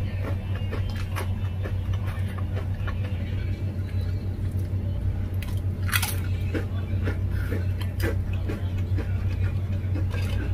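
Close-up chewing and crunching of crisp black ghost pepper potato chips, a string of small crackles with a sharper crunch about six seconds in. A steady low hum runs underneath.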